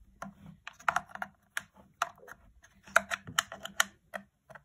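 Irregular sharp plastic clicks and taps from fingers handling a red Deans connector and its wires inside an RC boat's plastic hull, the loudest in a cluster about three seconds in.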